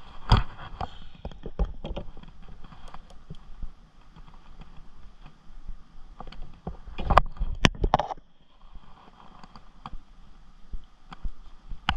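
Handling noise from a caught smallmouth bass being held right at the camera's microphone: irregular knocks and rustles over a low rumble. There is a sharp knock about half a second in and a cluster of loud knocks at about seven to eight seconds.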